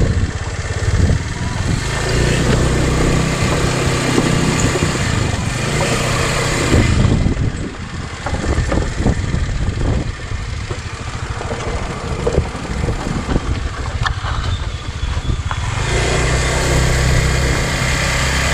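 Small motorbike engine running steadily under a rushing noise. Its low hum drops back for a stretch in the middle and comes up again near the end.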